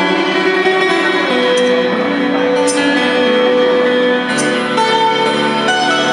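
Handmade double-necked, many-stringed lute, plucked by hand: a melody over long held notes, with faint light ticks about once a second.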